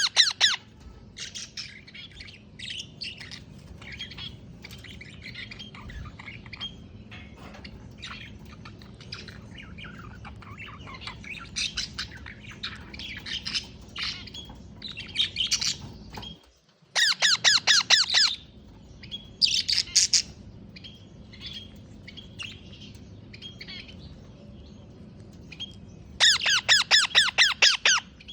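Pet parrot squawking and chirping in short harsh calls, breaking into loud runs of rapidly repeated squawks a little past the middle and again near the end.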